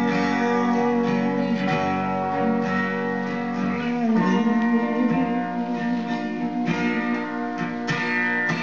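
Song music led by guitar, playing steadily.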